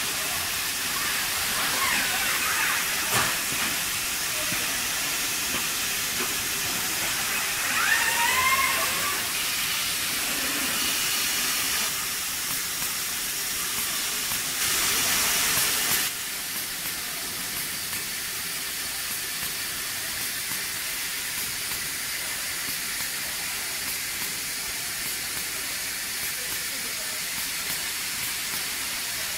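Steady hiss of an automated car-body assembly line, with a short rising whine about eight seconds in and a louder burst of hiss lasting about a second and a half midway, after which the noise settles a little lower.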